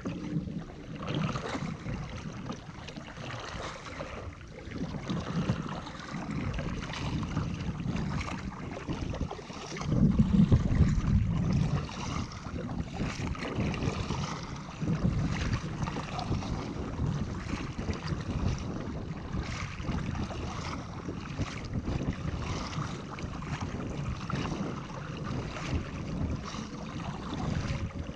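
Paddle strokes and water splashing around a fishing kayak being paddled over choppy sea, with wind rumbling on the microphone. The heaviest burst of wind rumble comes about ten seconds in.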